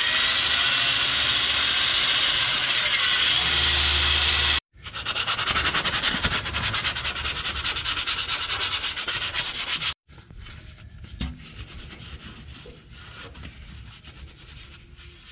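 Handheld drill spinning a wire brush against a steel exhaust pipe, cleaning it down to bare metal, the motor's pitch wavering under load. It breaks off about four and a half seconds in, scrubs again hard and fast until about ten seconds in, then gives way to quieter scattered scraping and rubbing by hand.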